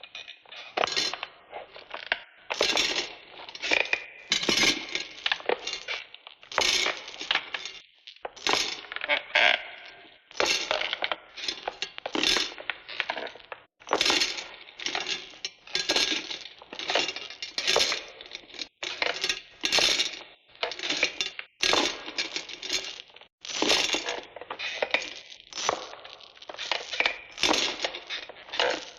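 Repeated bursts of clinking and rattling, about one every one to two seconds, each burst made of many quick clicks, from a sound-effects record.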